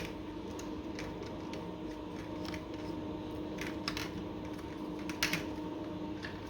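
A few light clicks and taps of modular wine-rack holder and connector pieces being handled and fitted together, the loudest near the end, over a steady electrical hum.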